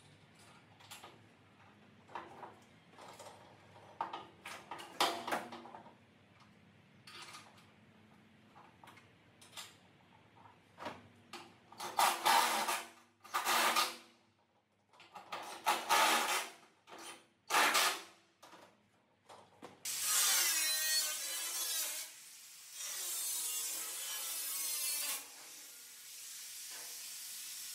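Small clicks and rattles of parts being handled, then a handheld power drill run in several short bursts of about a second each. From about twenty seconds in, an angle grinder cuts into a sheet-steel car body panel, grinding continuously with a few brief dips.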